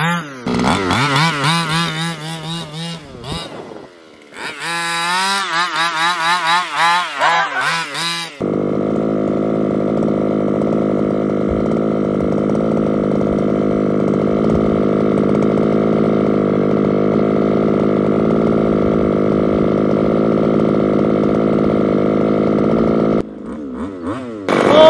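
Small 25cc two-stroke petrol engine of an HPI Baja 5SC RC truck revving up and down in quick throttle blips for several seconds, with a short dip in the middle. It then settles into a steady, even idle that drops away shortly before the end.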